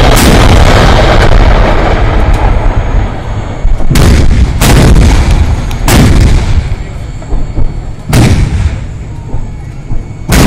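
Towed artillery guns firing in succession. A loud rolling rumble for the first three seconds is followed by sharp booms, each with a long echoing tail, about four, four and a half, six and eight seconds in, and again near the end.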